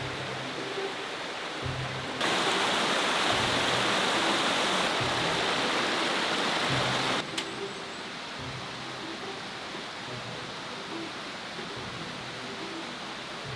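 Background music with a soft low beat. A loud rushing hiss starts abruptly about two seconds in and cuts off suddenly about five seconds later.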